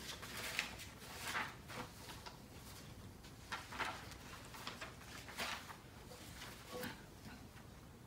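Loose paper sheets rustling as they are lifted, turned and laid down, several soft crinkles in a row, the last about seven seconds in.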